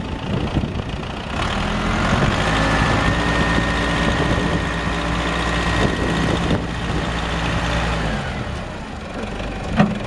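Engine of a 1975 Case 580B Construction King backhoe running, picking up speed about a second and a half in, with a steady high whine for several seconds while the front loader bucket is lowered. A single sharp knock just before the end.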